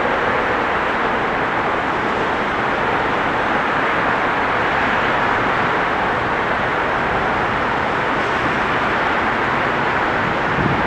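Steady, even roar of city traffic and a distant train approaching, with no single pass or horn standing out.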